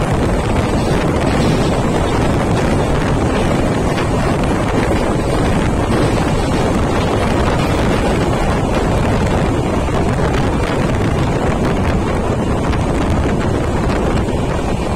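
Loud, steady wind noise on the microphone, held out of a passenger train coach running at speed, mixed with the train's running rumble.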